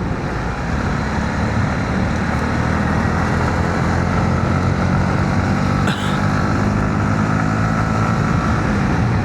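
Honda CB125R's single-cylinder engine running steadily while the bike is ridden, with road noise underneath. A short click about six seconds in.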